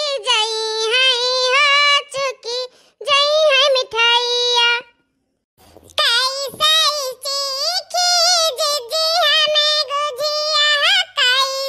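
A high, pitch-shifted cartoon character's voice in drawn-out, sing-song phrases, with a short pause about five seconds in.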